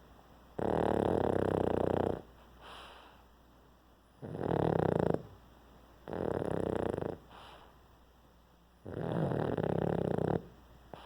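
A pug snoring in its sleep: four loud snoring breaths of about a second each, a couple of seconds apart, with fainter breaths between. This is the noisy breathing typical of the breed's short, flat-faced airway.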